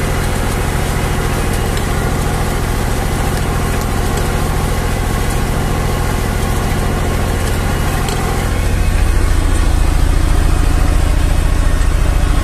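Zetor 5011 tractor's three-cylinder diesel engine running steadily under load, pulling a two-furrow plough. About eight seconds in, it becomes louder and deeper, as heard from inside the tractor cab.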